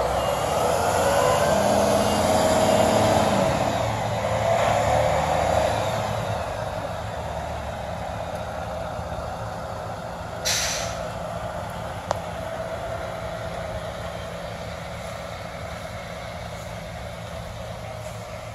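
Diesel engine of a heavy dump truck revving up and pulling away, its pitch rising and falling over the first few seconds, then running steadier and fading as it moves off. A short sharp air-brake hiss comes about ten seconds in.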